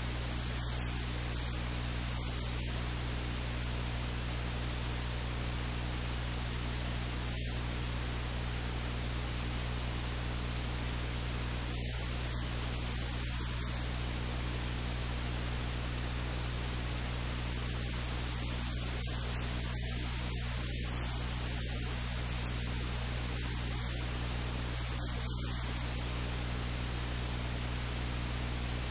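Steady electrical hiss with a low, constant mains-type hum; no other sound stands out.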